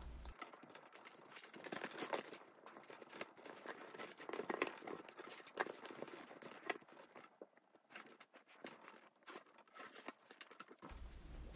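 Bamboo sushi rolling mat rustling and clicking softly as hands roll and press a maki sushi roll, with irregular light clicks from the slats.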